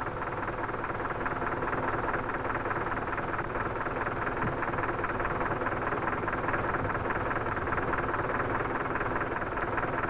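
JCB 3 backhoe loader's diesel engine running steadily.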